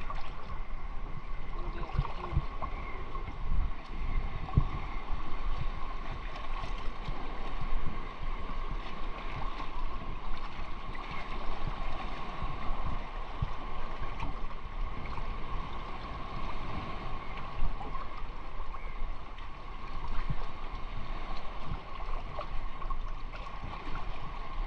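Seawater sloshing and lapping with irregular splashes as a man wades chest-deep, heard close to the water's surface.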